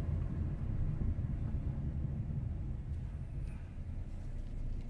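Steady low rumble of a car driving slowly in city traffic, heard from inside the car.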